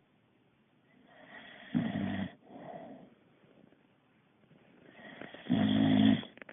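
Boxer dog snoring in its sleep: two loud, rattling snores on the in-breath, about four seconds apart, each with a softer breath before and after.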